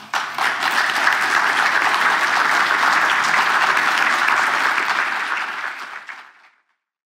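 Audience applauding: dense, steady clapping that fades out about six seconds in.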